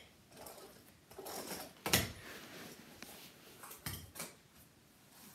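Fingerboard rolling and clacking against homemade cardboard ramps: soft scraping, a sharp clack about two seconds in, and two more knocks near four seconds.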